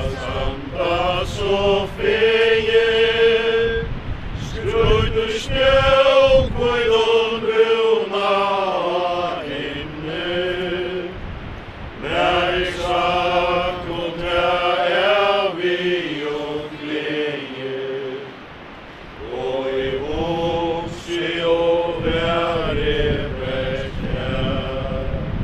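A group of people singing a hymn in unison without accompaniment, in slow, long-held notes and phrases, with a short pause about two thirds of the way through.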